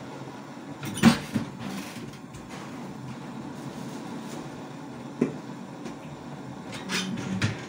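Kitchen cupboard and things in it being handled: a sharp knock about a second in with a smaller one just after, another click at about five seconds, and a short run of clattering near the end.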